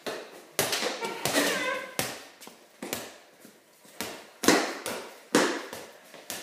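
A ball bouncing on a concrete garage floor, with scuffing feet: about a dozen irregular sharp thuds, each followed by a short echo.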